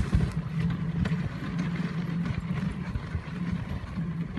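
Dog sled running over a packed snow trail: a steady rumbling scrape of the runners on the snow, with a hiss and a few scattered clicks.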